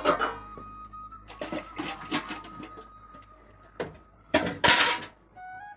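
Stainless-steel dishes and pots clinking and clattering as they are washed and set down on a stack, with a louder burst of clatter and splashing about three-quarters of the way through. Background music plays underneath.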